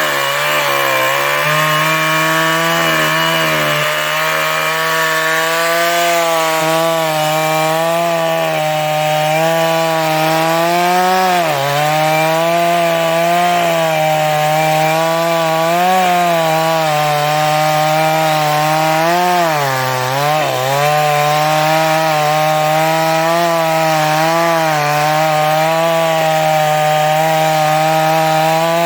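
New West 588 two-stroke chainsaw running at high revs while cutting an old teak trunk. The engine pitch dips briefly about 11 seconds in and again about 19 to 20 seconds in.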